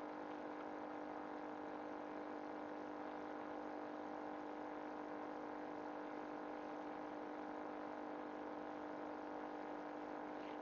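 A steady hum of one fixed pitch that does not change, with no clicks or knocks standing out above it.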